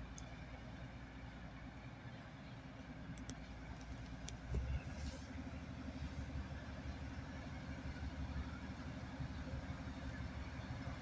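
Diesel engine of a TGM4 diesel-hydraulic shunting locomotive running with a steady low drone as the locomotive approaches slowly. There are a few faint clicks and a brief low thump about four and a half seconds in.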